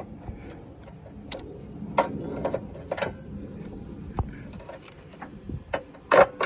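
Irregular sharp metallic clicks and knocks as the bent sheet metal around the radiator mount of a 2006 Cadillac DTS is worked back straight by hand, the loudest about two and three seconds in and a double knock near the end.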